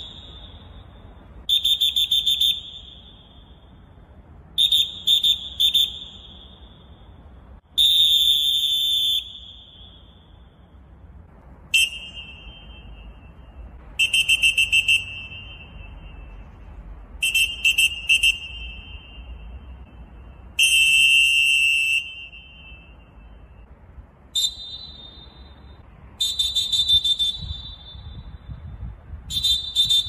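Molten referee whistles blown hard one after another: the Standard, then the Deluxe, then the Deevo, each giving a short pip, a long blast, three quick blasts and another long blast. The Deluxe sounds lower-pitched than the other two, and the Deevo starts near the end.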